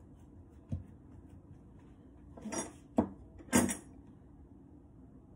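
A plastic dough scraper picked up and knocked against the worktop: two short clattery scrapes with a sharp click between them, after a faint thud of hands rolling dough on a silicone mat.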